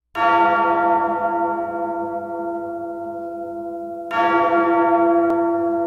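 A bell tolling twice, the strokes about four seconds apart, each one ringing on and slowly dying away.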